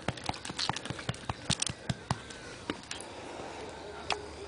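Light, irregular clicks and taps from a small terrier moving about on asphalt, several a second at first, then sparser.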